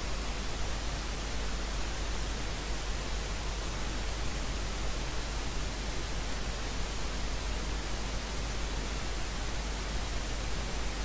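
Steady hiss with a low hum underneath: the background noise of the recording, with no other sound.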